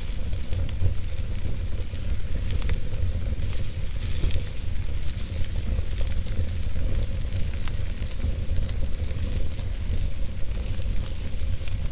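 Wood fire burning in an open-hearth fireplace: a steady low rumble and hiss of the flames, with scattered sharp crackles and pops of the burning logs.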